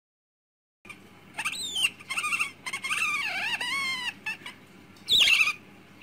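About a second of silence, then a small animal's high-pitched squeaking calls that slide up and down in pitch, with one short, louder squeal about five seconds in.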